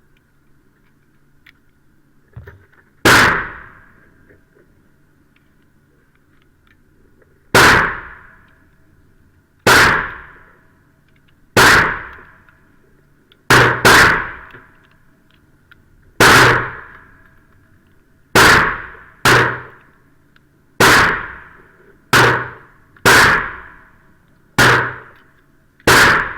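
A string of about fourteen pistol shots, irregularly spaced from under half a second to about four seconds apart, each with a short ringing tail. They come from a Sig Sauer 1911 Scorpion .45 ACP pistol firing 230-grain full-metal-jacket rounds, and some may be from other shooters.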